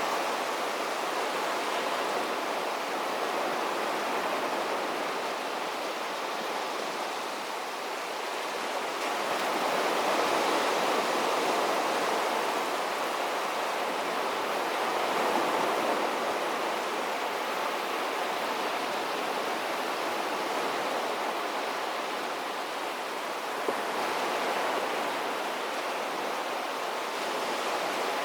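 Sea surf washing on a beach: a continuous rush of breaking waves that swells and eases slowly every several seconds.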